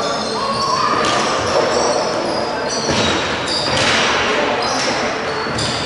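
Echoing sports-hall din during an indoor hockey match: players' and spectators' voices mixed with a few sharp knocks of sticks and ball. The noise swells for a moment about three seconds in.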